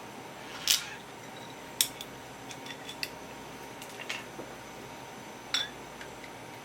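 Dishes and utensils clinking and tapping, about five sharp knocks with a short ring and a few lighter ticks between them, the loudest near the start.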